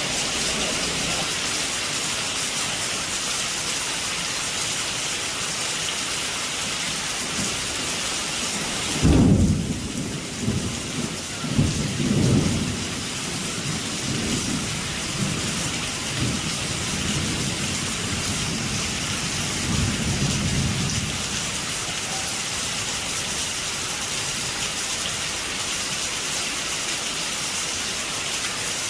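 Heavy rain falling steadily on a roof, with a sharp thunderclap about nine seconds in, followed by rolling thunder rumbles that come and go and fade out over the next dozen seconds.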